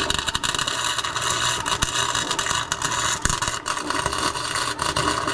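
Welding arc crackling steadily on a car's rear differential as the gears are welded up, a dense sizzle with a few sharper pops.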